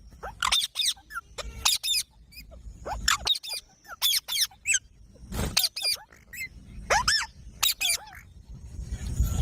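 Rose-ringed parakeet (Indian ringneck) calling in short, shrill squawks, several in quick succession, in bursts about a second apart. A rustling noise builds near the end.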